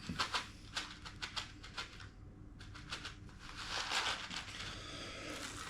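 Quick, dry crackles and clicks from a packet of dried edible insects being handled, thickest in the first two seconds, then a softer rustle.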